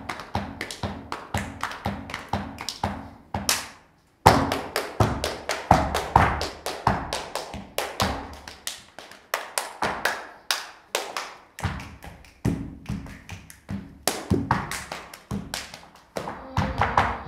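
Flamenco zapateado: heeled dance shoes striking a wooden stage floor in fast rhythmic runs, mixed with palmas handclaps. The runs break off for short pauses, briefly about four seconds in and again near the end.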